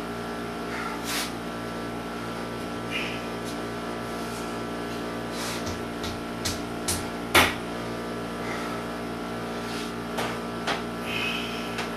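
Steady hum with a few scattered light clicks and knocks from tools and bracket hardware being handled. The sharpest knock comes about seven seconds in.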